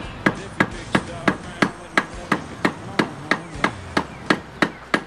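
Hammer striking the end of a steel extension bar, metal on metal, about three sharp blows a second, tapping against the back of a seized piston in a Johnson 140 outboard powerhead to work it loose.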